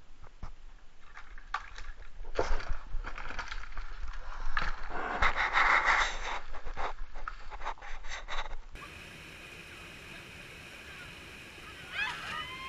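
Mountain unicycles and riders knocking, clattering and scraping on rock and gravel as they drop off a ledge and fall, densest in the middle. About two-thirds of the way through the sound changes abruptly to a steady outdoor hiss, with a short yell near the end.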